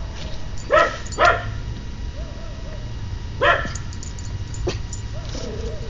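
Dog barking: two sharp barks in quick succession about a second in and a third a couple of seconds later, with faint whines in between.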